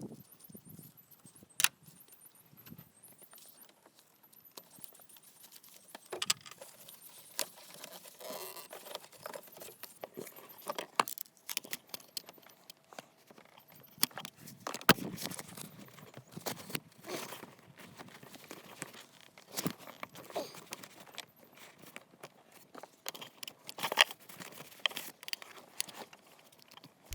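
Hand tools and metal hose clamps clinking, clicking and scraping as fuel hoses are worked off and fitted, in scattered irregular sharp clicks and rattles.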